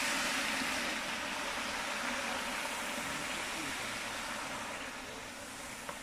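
Chunks of meat sizzling in hot oil in a kazan over coals, a steady hiss that slowly dies down.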